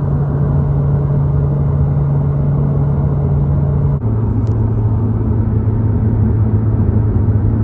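Car engine running at steady revs, a loud, close drone that drops suddenly to a lower pitch about four seconds in.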